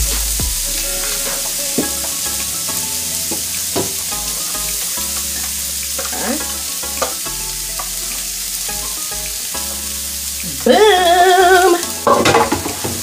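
Sliced white onion and green bell pepper sizzling on a hot electric griddle as they are tipped from a glass dish, with a few light knocks from the dish and falling pieces. A short tuneful sound, louder than the sizzle, comes near the end.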